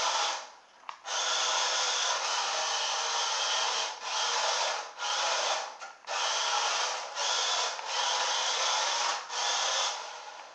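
Toy RC car's small electric motor and plastic gearbox whirring, with its tyres on a wooden parquet floor, running on a 2S LiPo battery at 7.4 volts. It comes in about seven bursts of one to three seconds with short breaks between them, as the car is driven in spurts.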